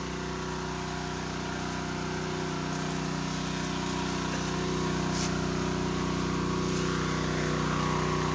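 Small engine running steadily at a constant speed, getting slowly a little louder.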